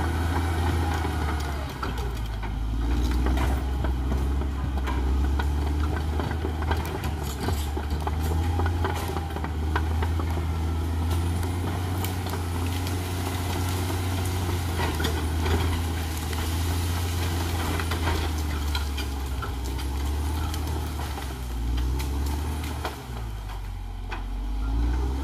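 Caterpillar D6R XL bulldozer's diesel engine running under load, with frequent sharp clanks and knocks from its steel tracks and the ground it is working. The engine note dips briefly near the end, then picks up again.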